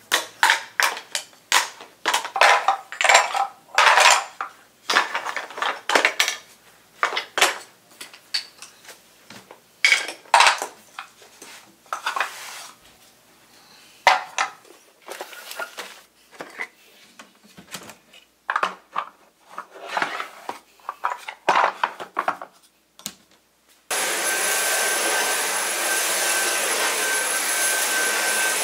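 Wooden and plastic toy food pieces clattering as they are picked up and dropped into wooden crates and a box: many short knocks and clicks in irregular clusters. About 24 seconds in, a cordless stick vacuum cleaner switches on and runs steadily on carpet with a high whine.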